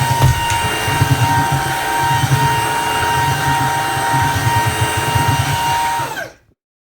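Shunzao L1 cordless stick vacuum cleaner running: a steady motor whine over rushing air. It fades out about six seconds in.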